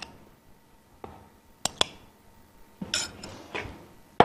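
Blue glass bowl clinking as sweet corn kernels are tipped and tapped out of it onto a salad: a few sharp clinks, two close together about a second and a half in, then a short clatter of knocks around three seconds in.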